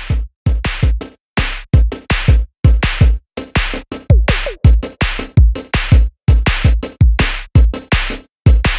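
Electronic background music with a quick, steady drum-machine beat and heavy kick-drum hits.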